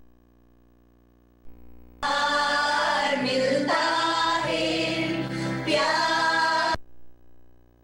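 Choir singing a worship song, starting loud about two seconds in after a quiet opening with only a faint held tone, and dropping out again near the end.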